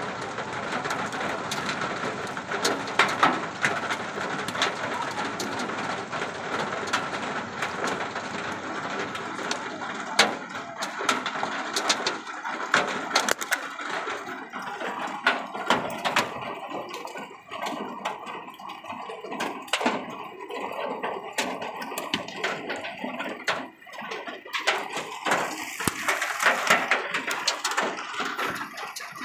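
Hail and heavy rain pelting down on a road: a steady hiss of rain with frequent, irregular sharp cracks of hailstones striking hard surfaces.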